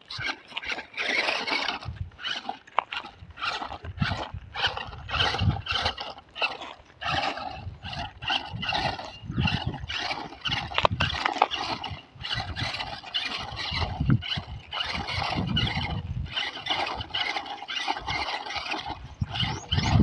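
Electric motor and gearbox of a toy RC off-road crawler whirring in short, uneven stop-start bursts as it drives over dry, cracked dirt.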